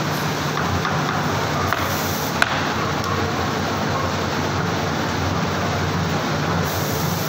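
Steady hum and noise of factory machinery, with one sharp click about two and a half seconds in.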